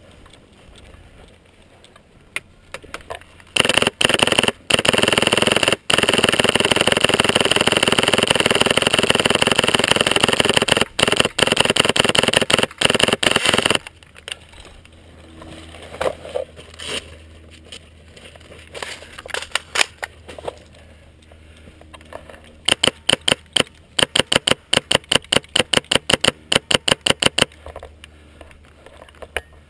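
Airsoft rifle on full auto, close by: a long string of very rapid shots lasting about ten seconds with a few short breaks. Near the end comes a second, shorter string of rapid shots whose separate cracks can be made out.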